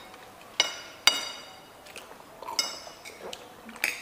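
Spoons and a drinking glass clinking against ceramic plates and the table: about four sharp, ringing clinks.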